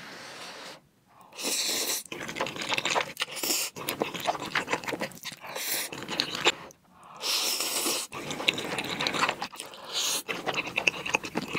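Noodles being slurped up in several hissy pulls, with wet chewing and mouth sounds between them.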